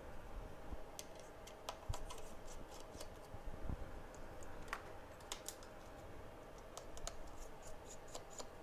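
Faint, irregular clicks and light scraping of small hand tools and a phone being handled on a repair bench, over a faint steady hum.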